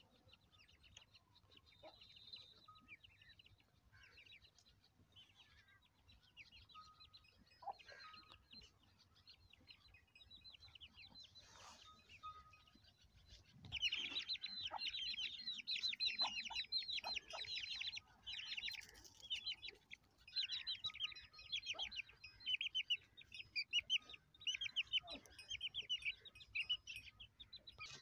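Faint bird chirps for the first half, then from about halfway chicken chicks peeping loudly in quick, high, continuous peeps, with a hen clucking now and then.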